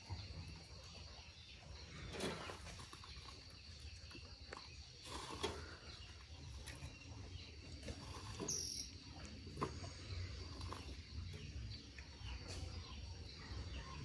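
Faint, scattered knocks of firewood logs, wood on wood, as they are taken from a wheelbarrow and set onto a small stacked bonfire pile. A steady high chirring of insects carries on underneath.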